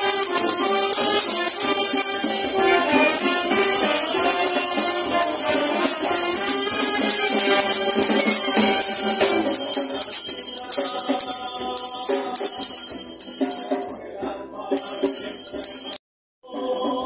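Procession hymn: voices singing to guitars with steady jingling percussion. The sound cuts out completely for about half a second near the end, then the music starts again.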